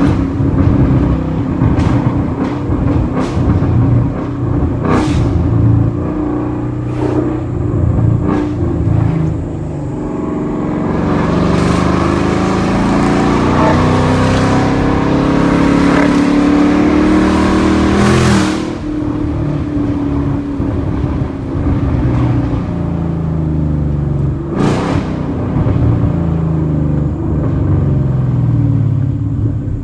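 2020 Ford Mustang GT's 5.0-litre V8 running through a straight-piped MBRP cat-back exhaust, revved so that its pitch climbs and drops several times. Sharp cracks come through it now and then, and a rushing noise builds over the engine for several seconds in the middle.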